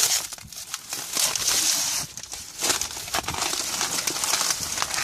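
Outer wrapping being torn and crumpled off a large firecracker pack: a busy rustling and crinkling with small crackles, in stretches that pause briefly about two seconds in.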